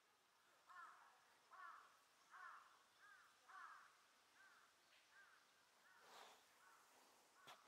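Faint crow cawing: a run of about eight caws roughly a second apart, starting about a second in and fading away. A couple of short clicks near the end.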